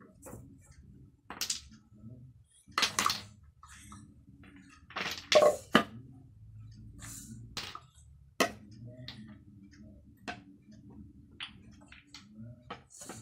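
Wooden toy blocks knocking and clattering together, in irregular clacks with a few louder clatters about three and five seconds in, over a low steady hum.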